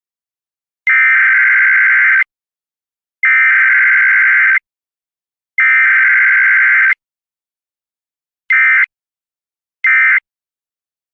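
Emergency Alert System digital data tones: a harsh two-tone warbling buzz. It comes as three long bursts about a second apart, then shorter bursts about a second and a half apart, the last starting just at the end. The short bursts are the end-of-message code that closes the alert.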